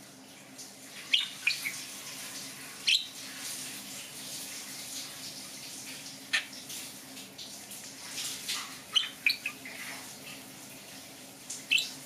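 A budgerigar gives short, sharp chirps and squawks a few seconds apart over the steady hiss of a running bathroom faucet, which fades in at the start.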